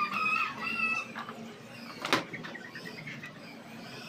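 Birds chirping in short high calls during the first second, with a single sharp knock about two seconds in.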